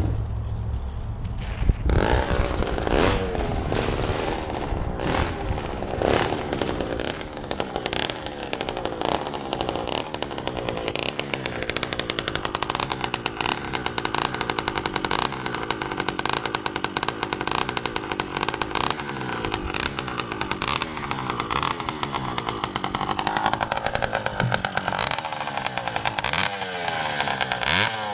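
Two-stroke motorized-bicycle engine with a straight-pipe exhaust, started by pedaling on a newly wired standalone PW80 CDI and coil. It catches about two seconds in and runs with a rapid firing beat, revs rising and falling as it is ridden, then runs steadier before being revved up and down again near the end.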